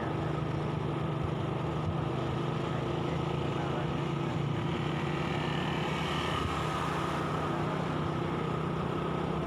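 Motorcycle engine running at a steady speed while riding, a steady hum over road and wind noise.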